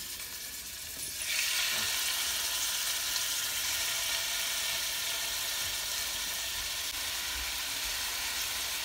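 Raw chicken thigh pieces sizzling in a hot stainless steel sauté pan. The sizzle turns sharply louder about a second in, as a batch of meat goes in, then holds as a steady hiss.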